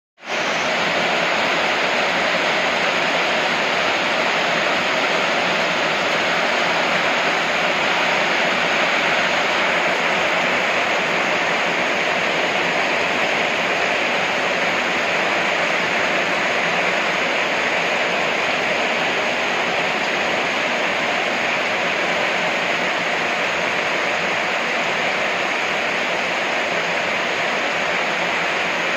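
Heavy rain falling steadily on corrugated metal roofs and streaming off the eaves into a flooded yard.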